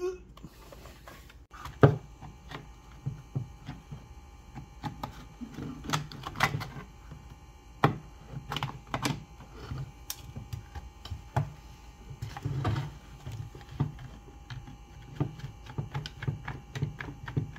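A flat screwdriver prying and scraping at a Rockwell Model 60 jigsaw's tightly sealed housing, with irregular clicks, knocks and clatter of metal parts. The loudest, a sharp snap, comes about two seconds in.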